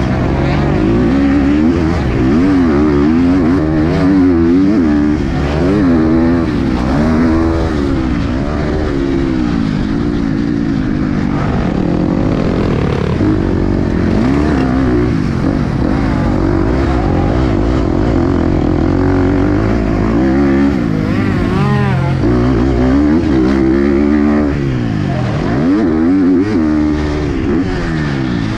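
KTM SX-F 250 four-stroke single-cylinder motocross engine at race pace, revving up hard and dropping back over and over as the throttle is opened and shut.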